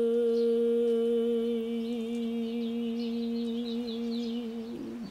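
A single voice holds one long note at the close of a Hawaiian chant (oli), wavering slightly before it stops near the end. Faint bird chirps sound high above it.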